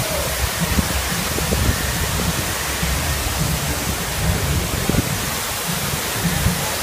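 Man-made waterfall pouring down sculpted rockwork close by: a steady rushing hiss of falling water, with an uneven low rumble underneath.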